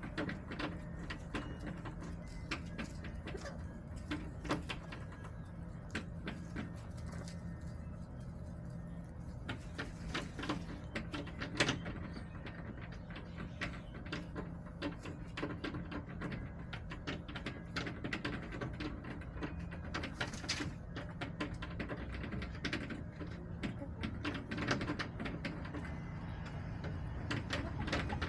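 Backyard chickens pecking and scratching: many irregular light taps and clicks, over a steady low hum.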